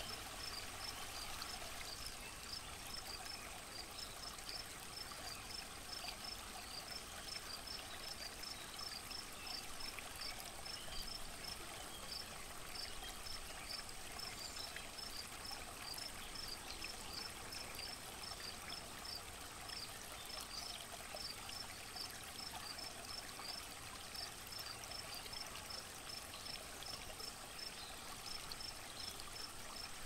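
Steady rush of flowing water, like a stream. A high, thin chirp repeats about three times a second over it, with a few short breaks.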